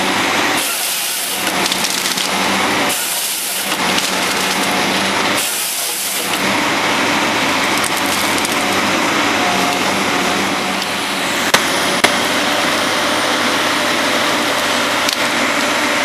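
Cat 550 wheeled harvester working close by, its engine and hydraulics running steadily while the dangle processing head handles a tree with continuous cracking and splintering of wood and branches. Three short hissing bursts come in the first six seconds, and two sharp cracks come about halfway through.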